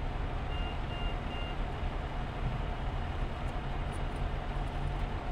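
A large vehicle's engine idling with a steady low rumble. About half a second in come three short, high electronic beeps, evenly spaced.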